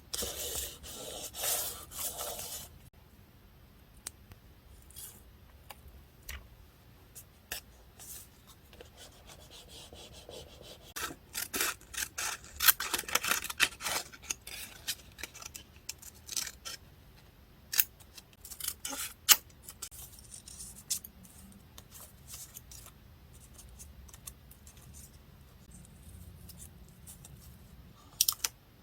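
Scissors cutting paper and paper being rubbed and handled, with many scattered light clicks and snips; the busiest stretch of cutting and rustling comes about halfway through.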